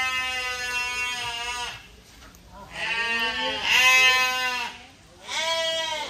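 Livestock bleating: three long, drawn-out calls with short gaps between them, the middle one the loudest.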